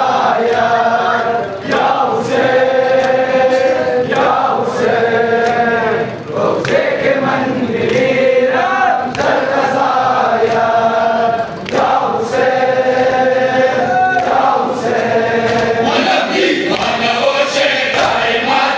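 A large crowd of men chanting a noha (Shia lament) in unison, in held, repeated phrases. The chant carries the rhythmic slaps of matam, hands beating on bare chests in time.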